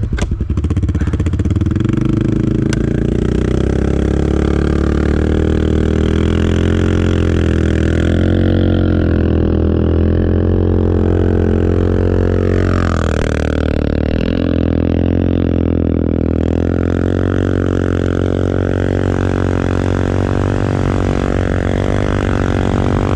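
ATV engine revving hard and held at high revs under load, straining to drive a four-wheeler out of deep snow where it is stuck. The revs climb about two seconds in, hold steady, then dip and climb again about halfway through.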